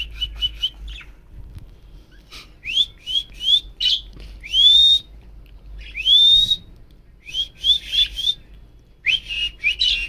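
Budgerigar chirping: quick runs of short rising chirps, with two longer upward calls in the middle.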